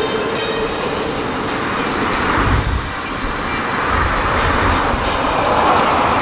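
JR Central 315 series electric train pulling away from the platform, its running noise heard as it moves off down the line, mixed with road traffic noise.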